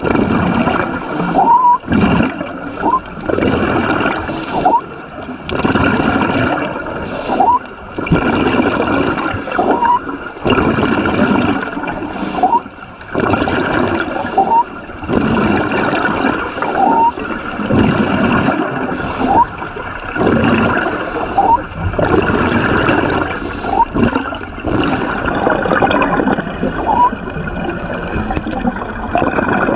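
Scuba diver breathing through a regulator underwater: bubbling gurgles of exhaled air alternate with the breath, repeating about every two seconds, each cycle with a short rising squeak.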